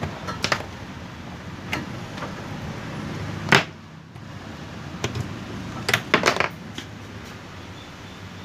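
Clicks and knocks of audio cables' jack plugs being pulled out of a mixing console's inputs. The sharpest pop comes about three and a half seconds in, after which a low hum drops away.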